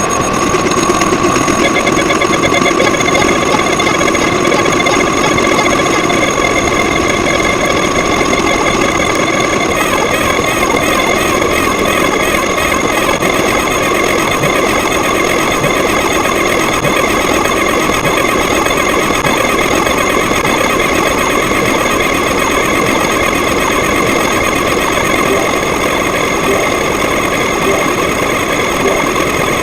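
Loud, unbroken din of many sound effects playing on top of one another, with many steady tones stacked over a constant rumbling noise. A fluttering high pattern joins about ten seconds in.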